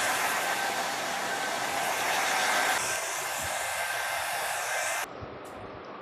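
Handheld hair dryer blowing steadily. It gets a little quieter about three seconds in, then switches off suddenly about five seconds in.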